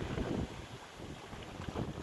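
Sea surf washing in at high tide, with wind buffeting the microphone in low, uneven gusts that ease off about half a second in.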